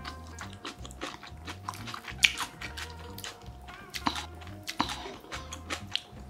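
Close-miked eating sounds: sharp wet clicks and sticky smacks as spicy buldak-sauce-coated enoki mushrooms are picked up with chopsticks and chewed, the loudest click about two seconds in. Background music plays underneath.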